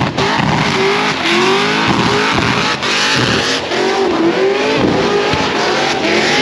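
A car doing a burnout: the engine revving hard while the spinning tyres squeal.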